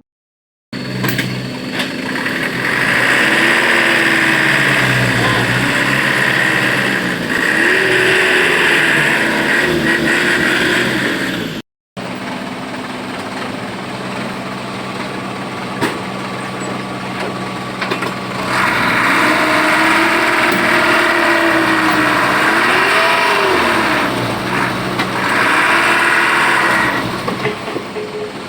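Backhoe loader's diesel engine running and revving up and down repeatedly, each rev a rise and fall in pitch with a loud hiss that swells alongside it. The sound briefly drops out about 12 s in.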